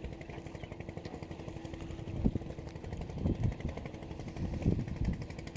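A small engine running steadily, a constant hum with fast, even ticking. A few low thumps hit the microphone along the way.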